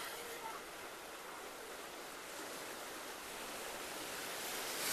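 Small sea waves breaking and washing over shoreline rocks: a steady, soft hiss of surf that swells a little near the end.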